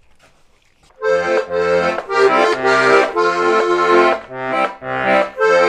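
Heligónka, a Slovak diatonic button accordion, playing a short run of chords and notes, starting about a second in.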